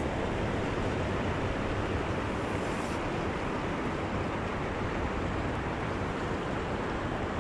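Steady rushing of a fast river current flowing over rocks close by, an even, unbroken wash of water noise.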